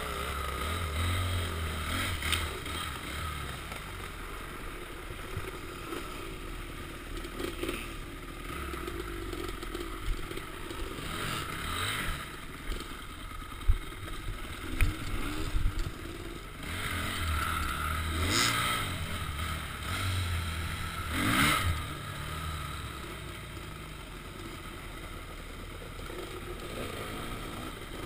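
Off-road dirt bike engine running while being ridden over rough trail, revving up in bursts, with a couple of sharp clattering knocks from the bike over the ground about halfway through.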